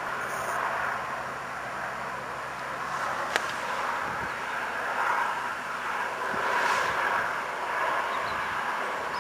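Distant HST power car with Paxman Valenta engines approaching: a steady engine drone that swells slightly, with a single sharp click about three and a half seconds in.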